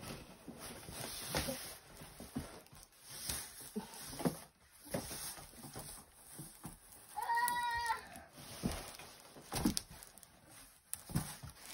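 A short, wavering, bleat-like call, under a second long, about seven seconds in, among scattered faint knocks and rustles.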